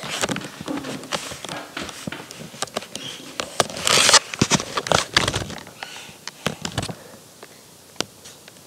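Camera handling noise: scattered clicks and knocks while the camera is moved about, with a louder rubbing rush about four seconds in, growing quieter after about seven seconds.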